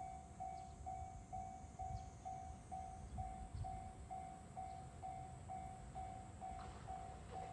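Japanese railway level-crossing warning bell ringing, one electronic tone repeating evenly about twice a second, over a low rumble.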